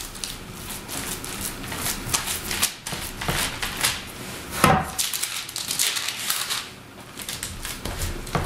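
Hands patting and pressing raw ground beef and pork mixture flat on parchment paper: a run of quick, irregular soft pats and slaps, with one louder slap a little past the middle.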